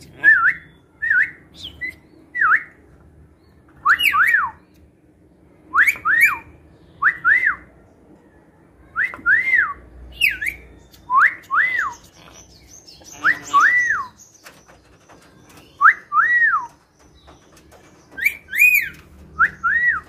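Lorikeet whistling: a series of clear whistled notes, each sweeping up and back down, often in quick pairs, repeated every second or two.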